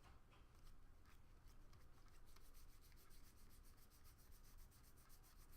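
Faint, quick flicking of trading cards being thumbed through a stack one by one, speeding into an even patter of about eight flicks a second from about two seconds in, as he checks the pack for a missing autograph card.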